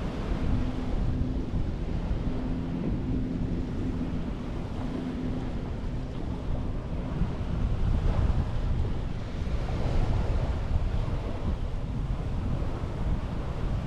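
Sea waves washing ashore, with wind rumbling on the microphone. The wash swells a little twice in the second half, and a faint low hum runs under it for about the first half.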